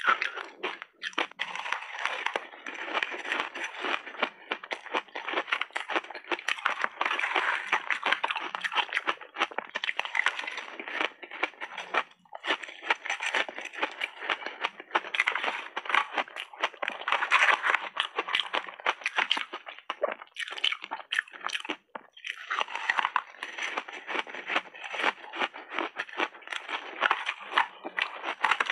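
Crunching and crackling of hard frozen flavoured ice, broken up by gloved hands and chewed in big bites, as a dense, fast run of crunches. There are brief pauses about 12 and 22 seconds in.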